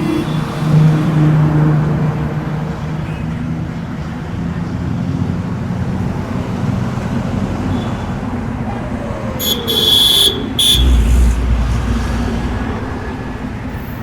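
Road traffic passing close by, a steady mix of engine and tyre noise. A nearby engine runs loudly in the first couple of seconds. About ten seconds in come two short high-pitched sounds, followed by a deep low rumble for a couple of seconds.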